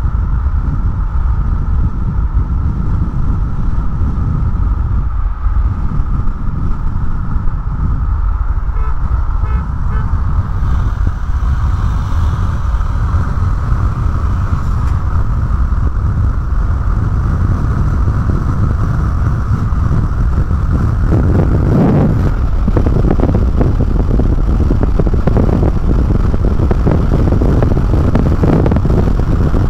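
Steady road and wind noise inside a car cruising at highway speed, a constant low rumble with a steady hiss, slightly louder about two-thirds of the way through.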